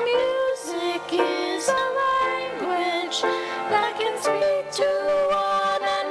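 Music: a woman and a girl singing a duet over accompaniment, their voices gliding between held notes.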